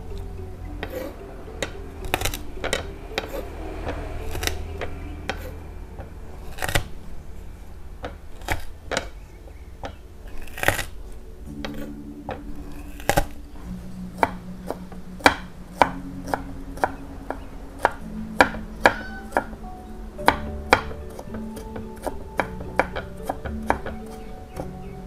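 Kitchen knife chopping garlic and shallots on a wooden cutting board: sharp, irregular knocks of the blade against the board, louder and more regular in the second half. Soft background music with held notes comes in about halfway.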